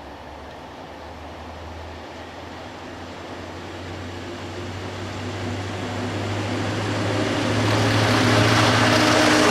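Diesel engines of a pair of GBRf Class 73/9 electro-diesel locomotives approaching, growing steadily louder. A low hum is joined by higher steady engine tones in the last couple of seconds as they draw near.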